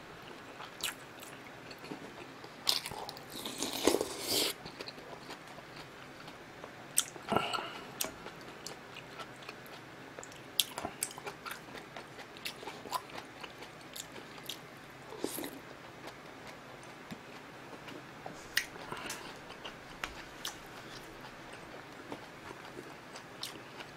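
A person chewing and biting food close to the microphone, as in a mukbang: irregular wet mouth clicks and smacks, with a few louder bites scattered through.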